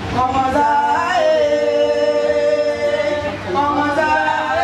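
Singing: a voice climbs through a few notes, holds one long steady note for about two seconds, then starts a new phrase near the end.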